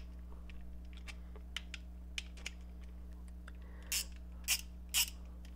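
Small metallic clicks from a Deen 3/8-inch drive roto ratchet being handled: a few faint ticks, then three sharper clicks about half a second apart near the end.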